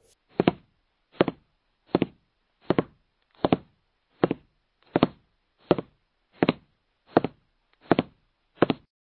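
A steady run of twelve knocks, evenly spaced at a little under one and a half per second.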